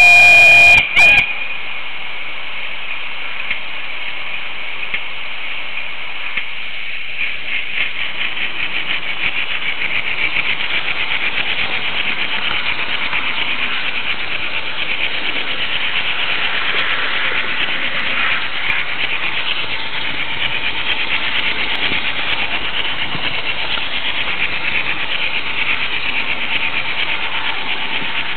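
H0 model train running on Märklin track, heard from a camera riding on a car in the train: a steady high rattle and hiss of small wheels rolling over the rails, with quick ticks as they cross rail joints. In the first second the locomotive's sound module gives a loud toot.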